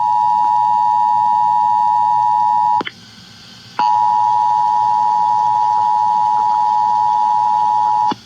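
Emergency Alert System two-tone attention signal (853 and 960 Hz) sounding steadily over broadcast radio during a Required Monthly Test. It breaks off with a click for about a second, leaving only hiss, then resumes and cuts off suddenly just before the end.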